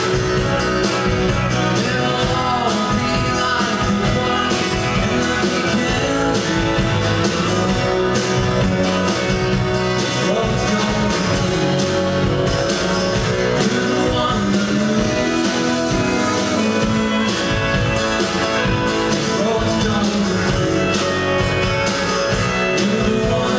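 Live country-rock band: two strummed acoustic guitars over drums, with a male voice singing the melody.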